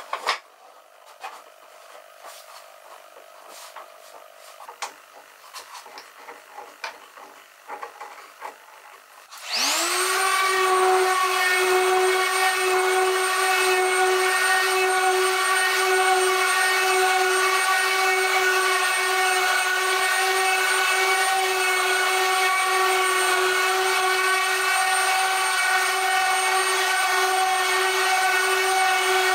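A few light knocks, then about a third of the way in an electric random orbital sander spins up with a rising whine. It settles into a steady, even run while sanding a fir and pine tabletop panel.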